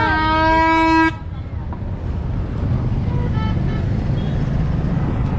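A plastic toy party horn blown in one long steady note that drops to a lower note and cuts off about a second in, followed by the low rumble of street traffic with cars and motor-tricycles.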